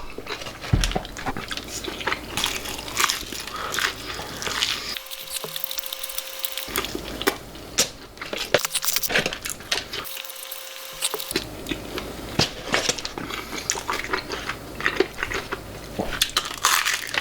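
A person crunching and chewing fried chicken, with many irregular crisp bites.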